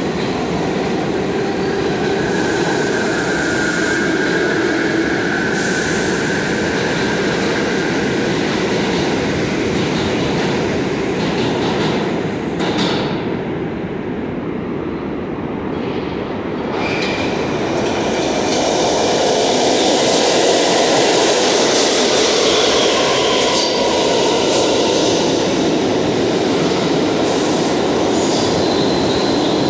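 New York City Subway trains rumbling through an underground station, with a wheel squeal a couple of seconds in. Near the middle there is a brief lull, then a train grows louder as it pulls in along the platform.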